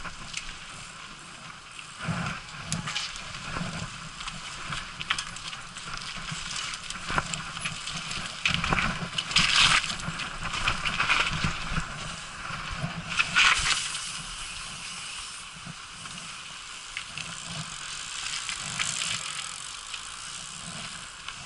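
Mountain bike riding along a dirt singletrack: tyres rolling over the dirt and the bike rattling over roots and bumps, heard from a camera carried on the ride. Two louder rushes come about nine and thirteen seconds in.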